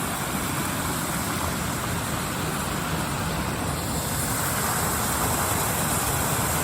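Waterfall running, a steady, even rush of falling water that swells slightly about four seconds in.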